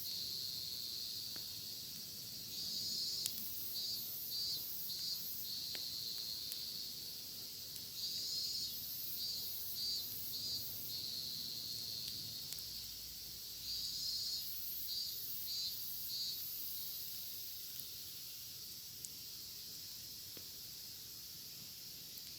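A cicada singing: a high steady buzz that breaks into bursts of rapid pulses, the cycle repeating several times before the song dies away near the end. A few faint crackles from the campfire.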